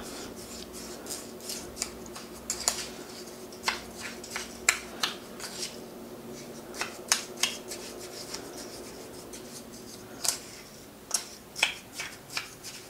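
White plastic spoon stirring a gritty coffee-ground and olive-oil scrub in a ceramic bowl, scraping and clicking against the bowl in irregular strokes that come quicker and more evenly near the end.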